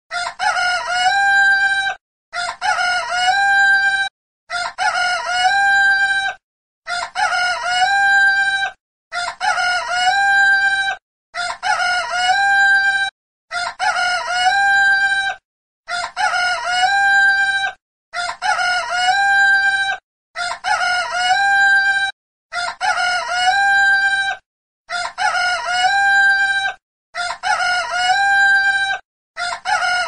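A rooster's cock-a-doodle-doo crow looped as a phone ringtone: the same recorded crow repeats about every two and a quarter seconds, each about two seconds long with a brief silence between.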